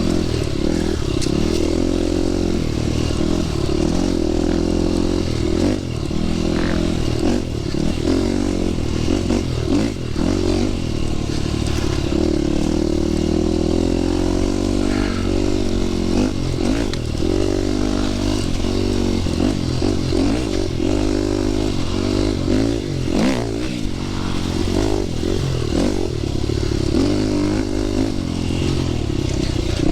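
Dirt bike engine revving up and down continuously as it is ridden along a trail, pitch rising and falling with the throttle, with occasional knocks and rattles.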